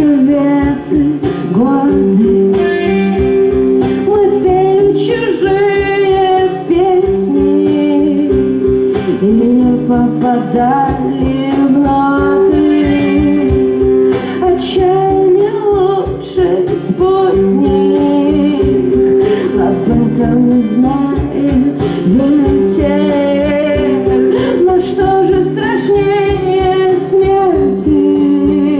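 Live band playing amplified music with a singer, guitar and a steady drum beat.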